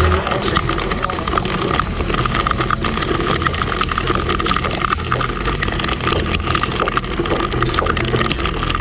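Dafra Next 250 motorcycle running on the move in rain, with a steady low engine rumble under dense noise and many small taps, as of raindrops striking the microphone.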